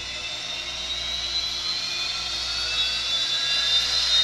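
Sound decoder in an N scale Rapido Turbo Train model playing gas-turbine engine start-up from its onboard speaker: a turbine whine of several tones slowly rising in pitch and growing louder as the engines spool up.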